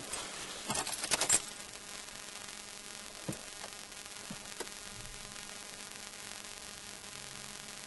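Car keys jangling as the ignition of a Peugeot 306 diesel is switched on, followed by a faint steady hiss with a few soft clicks while the glow plugs preheat before cranking.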